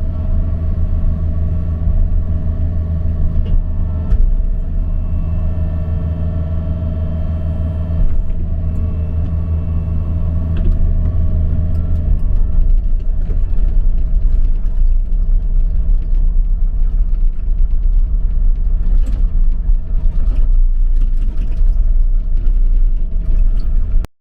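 John Deere 50G mini excavator's diesel engine running steadily, heard from inside the cab, its drone shifting a few times, with scattered light clicks and knocks later on. The sound cuts off abruptly at the very end.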